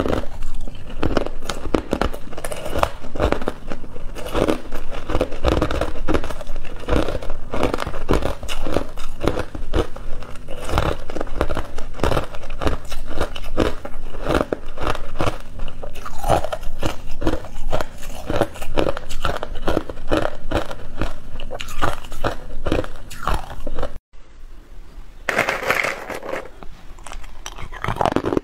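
Hard, clear ice cubes being bitten and chewed close to the microphone: dense, irregular crunching and cracking. About four seconds before the end the sound drops out for a moment and carries on quieter and sparser.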